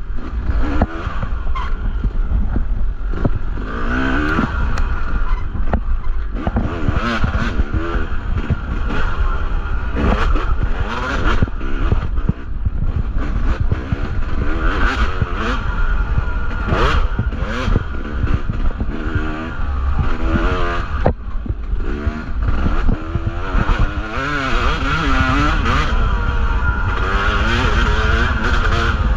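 Yamaha two-stroke dirt bike engine revving up and down constantly as the throttle is worked over a rough trail, its pitch rising and falling every second or so. Frequent sharp knocks and clatters cut through, over a constant low rumble.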